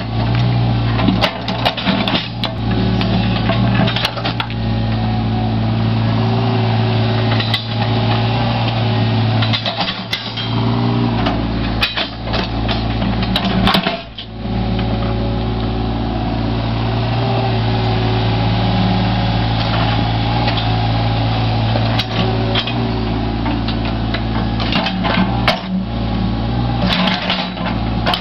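Caterpillar 303.5 CR mini excavator's diesel engine running steadily under hydraulic load, with frequent knocks and scrapes as the steel bucket and thumb grab and break out stones from a wall.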